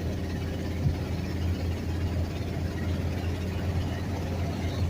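Truck driving at highway speed, heard from inside the cab: a steady low engine and road drone, with one brief knock about a second in.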